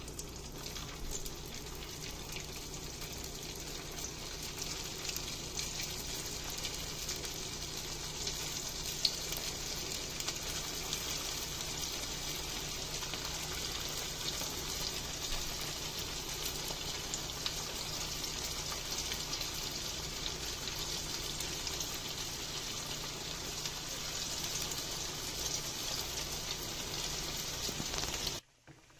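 Sabudana (sago) vadas deep-frying in hot oil in a frying pan, sizzling steadily with fine crackles. The sizzle cuts off suddenly near the end.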